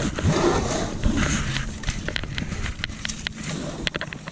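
Handling noise on a boat deck: a loud low rumble with thumps as a plastic bucket is moved, then a scatter of light clicks and taps.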